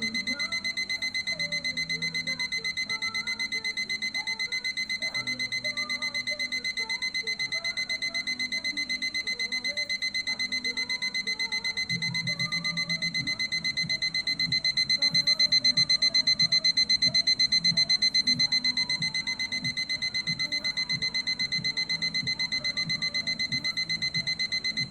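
Lego Star Wars Stormtrooper alarm clock's alarm going off: a rapid, evenly pulsing high-pitched electronic beep, briefly louder about two-thirds of the way through, then stopping abruptly at the end. The alarm is working properly.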